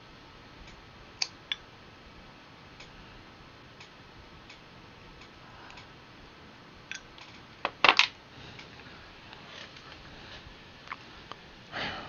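Scattered clicks and taps from working a computer mouse and keyboard, with a short burst of louder knocks about eight seconds in and another just before the end.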